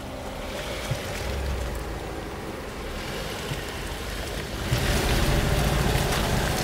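Jeep Wrangler Rubicon driving slowly over a rutted, muddy track: engine running low under the churn of its tyres through mud and puddles. About five seconds in the sound turns louder and rougher, heard close to the front wheel with wind buffeting the microphone.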